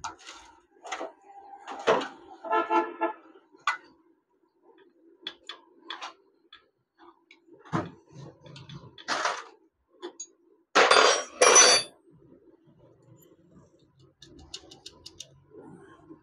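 Metal clinks and clatter of hand tools on a Honda 70 motorcycle engine crankcase as a bolt is turned with a long socket bar. There is a brief ringing clink about three seconds in, and two louder metallic clatters about eleven seconds in, over a faint steady hum.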